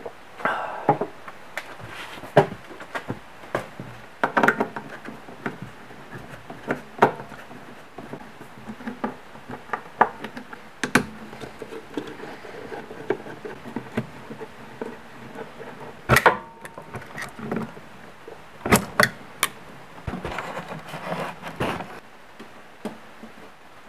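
Irregular clicks, taps and light rattles of a screwdriver and wiring being handled inside a CNC machine's electrical control cabinet. A louder sharp click comes about two-thirds of the way through, then a quick run of clicks and a short rustle.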